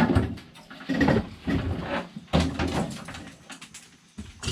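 Irregular knocks, rattles and scrapes of sheet metal as a Jeep CJ5's hood is worked loose and lifted off.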